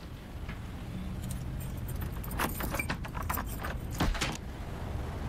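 Keys jangling and clicking in a door lock, then the door opening and catching on its chain lock with a sharp clack about four seconds in.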